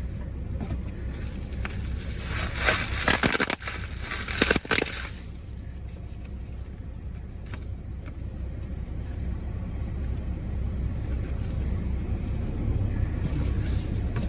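A shipping package being opened by hand: crackling, rustling and tearing of packing material in a flurry of loud bursts a couple of seconds in, dying away after about five seconds, over a steady low rumble.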